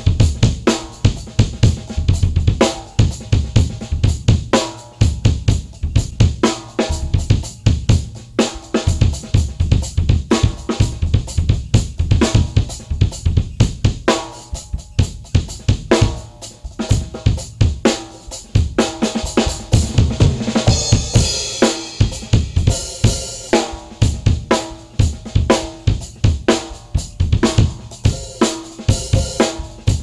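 Acoustic drum kit played freely with sticks: a busy, continuous pattern of snare, bass drum and tom hits under Sabian cymbals and hi-hat. The cymbals wash more heavily a little past the middle.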